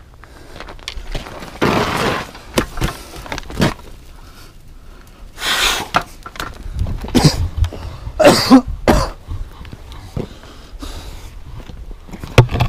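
Yamaha Tri-Moto three-wheeler's engine revving in irregular bursts as it spins donuts on ice, with its tyres throwing up snow.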